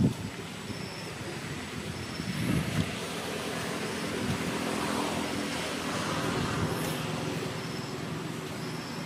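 A motor vehicle passing: engine hum and road noise swell through the middle and then ease off.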